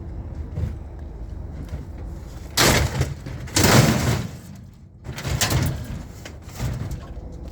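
Scrap dishwasher scraping and clattering as it is shoved and loaded. Two loud scrapes come about two and a half and three and a half seconds in, followed by two shorter ones.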